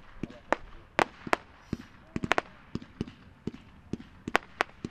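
Dominator 500-gram consumer fireworks cake "Breaking News" firing: an irregular run of sharp bangs, about three a second, from its launches and shell bursts.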